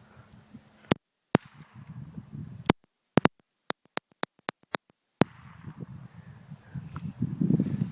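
Pistol shots, two spaced apart and then a rapid string of about nine, roughly three to four a second, each a sharp crack.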